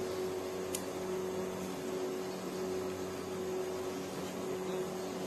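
Steady machine hum holding a constant low tone over a faint hiss, with one short click just under a second in as a grease gun is worked on a pallet mover's link joint.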